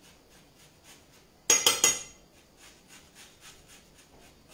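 Lemon being zested on a rasp grater: faint, regular scraping strokes about four or five a second. About a second and a half in come three sharp, loud clinks of metal on crockery.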